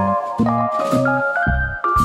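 Background music: sustained melodic notes over a steady beat of low bass thumps about twice a second.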